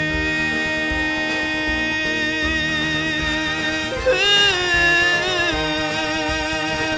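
A teenage boy's singing voice holds the final long note of the song over a musical backing track. About four seconds in, the pitch shifts and wavers into the closing chord.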